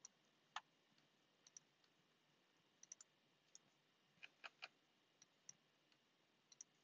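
Faint computer mouse clicks and key presses: about fifteen short, sharp clicks at uneven intervals, some in quick pairs or threes, over near silence.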